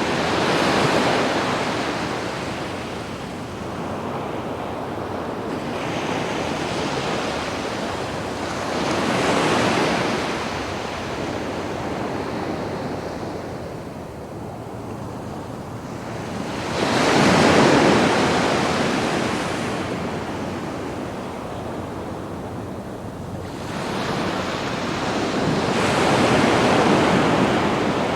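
Sea waves breaking and washing up onto a sandy beach, swelling and ebbing about every eight seconds. Four waves come in, and the loudest one is a little past the middle.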